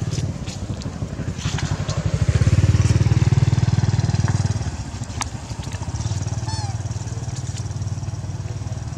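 A small motor engine running steadily nearby, with a fine even pulse, growing louder for a couple of seconds around the middle and then settling back.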